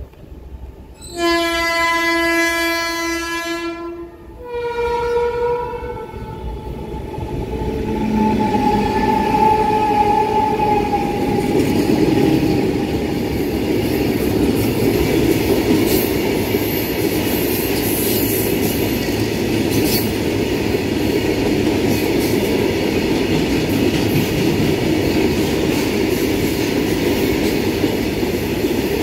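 A WAG-12 electric freight locomotive's horn sounds twice about a second in, a long lower blast and then a shorter, higher one. Then comes the steady, loud running noise of the freight wagons rolling past close by.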